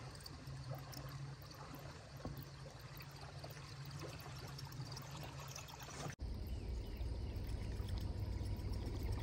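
Faint river ambience: a soft trickling of water with a low hum and a few small ticks. About six seconds in it cuts to a louder, steady low rumble.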